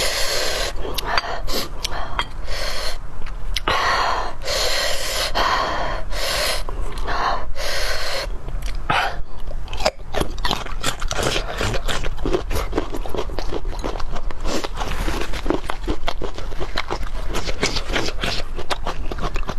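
Close-miked eating of bone marrow and garlic. For about the first half there is a string of short, sharp, noisy in-breaths or sucking sounds. After that come many quick wet chewing and lip-smacking clicks.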